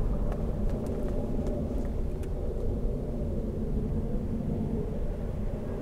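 A steady low rumble, with the light footfalls of a runner on the boardwalk ticking over it for the first two or three seconds and then dying away as the runner moves off.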